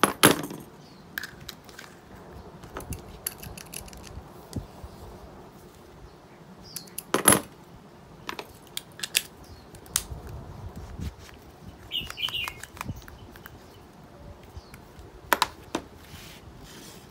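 Pressure-washer trigger gun being assembled by hand: brass quick-connect fittings and a plastic nozzle adapter clicking and clinking as they are handled and snapped together. A sharp click right at the start, the loudest about seven seconds in, and another about fifteen seconds in, with lighter ticks and a brief squeak between.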